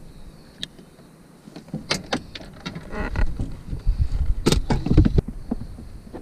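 Handling noise of a caught fish being put into a boat cooler: irregular knocks and thuds as the fish and the cooler lid are handled, loudest about four and a half and five seconds in.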